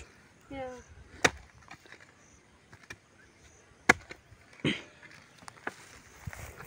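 A hand hoe striking the soil in a few sharp, separate knocks, the loudest about four seconds in, with a short scraping sound just after it.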